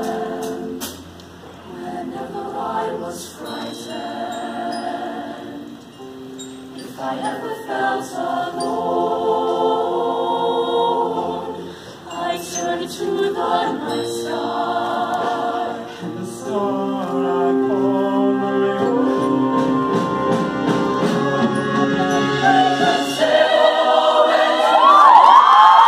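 Mixed-voice show choir singing in harmony, with held chords shifting every second or so, growing to its loudest near the end.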